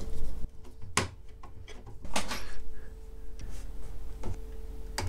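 Handling noise from a CD changer's metal mechanism being taken apart with a screwdriver: a few separate clicks and knocks, about a second in, around two seconds in and near the end.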